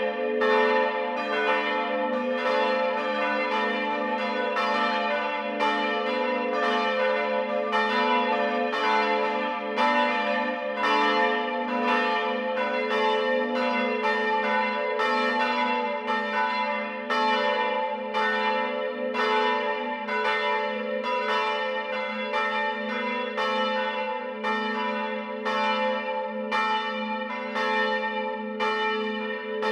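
Church bells of a Lutheran church tower ringing together as a full peal, with many strikes overlapping in an uneven pattern. Their low tones keep sounding between the strikes.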